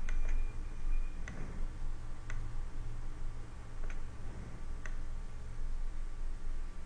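Computer mouse buttons and a keyboard key clicking: about six short, sharp clicks spaced irregularly, roughly a second apart, over a low steady hum.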